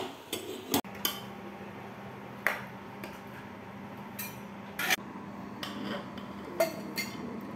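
A kitchen utensil knocking and clinking against a cooking pot: a series of separate sharp strikes spaced a second or more apart, the loudest right at the start, over a steady low hum.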